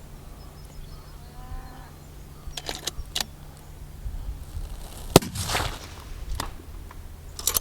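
A single target-rifle shot about five seconds in, a sharp crack with a short echoing tail, over a steady low hum. There are a few light metallic clicks before and after it.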